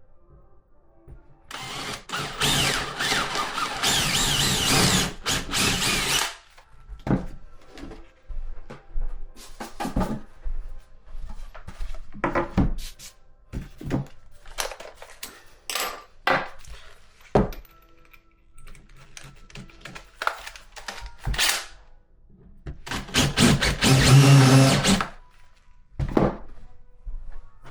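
Power drill running in two bursts of a few seconds, one early and one near the end, driving screws into a flat-pack furniture panel. Scattered knocks and clicks of wooden panels and parts being handled fall between the bursts.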